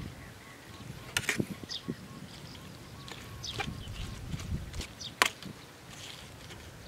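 Metal spoon clinking and scraping against a metal food tray as noodles and vegetables are scooped up: two sharp clinks about a second in and a louder one about five seconds in, with softer scrapes and eating sounds between.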